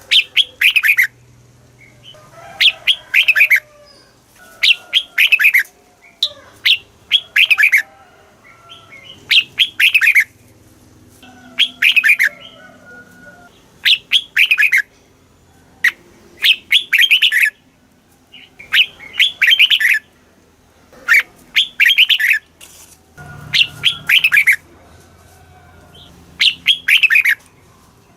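Red-whiskered bulbul singing: loud short phrases of two to four quick notes, each sweeping down in pitch, repeated about every two to three seconds, with fainter calls between the phrases.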